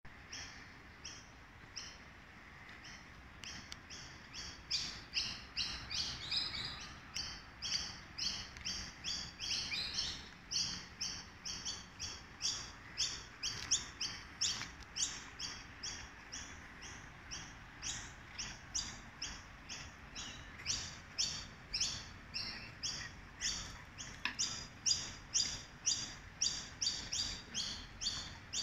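A bird chirping over and over, short high chirps about two a second, with a few sliding calls from other birds mixed in. Beneath them runs the faint, steady rush of the flooded creek.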